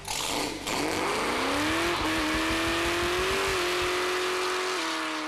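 Muscle car doing a burnout: the engine revs up over about the first two seconds and holds at high revs while the spinning rear tyres squeal and hiss.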